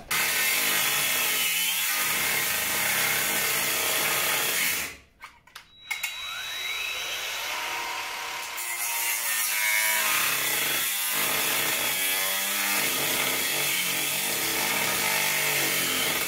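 Angle grinder grinding the TVR's steel chassis tube, throwing sparks, as the chassis is cleaned back ready for paint. It runs steadily, stops for about a second about five seconds in, spins back up with a rising whine and carries on grinding.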